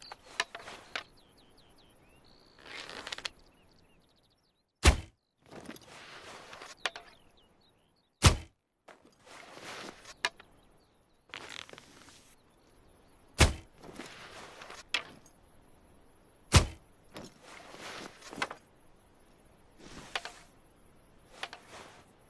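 Recurve bow being handled and shot: stretches of rustling and scraping with small clicks, and four sharp, loud thumps of the string on release. The first two thumps each follow a brief silence.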